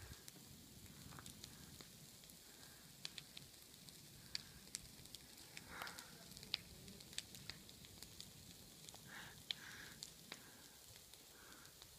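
Faint crackling of a burning fire: sharp, irregular pops and snaps over a low, steady background noise.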